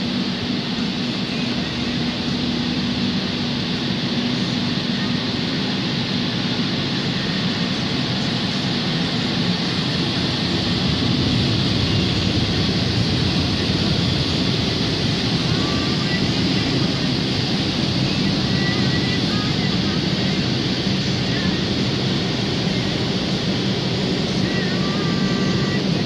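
Automatic car wash gantry blowing air over the car, heard from inside the car: a steady rushing of air with a low machine hum. It grows a little louder about ten seconds in.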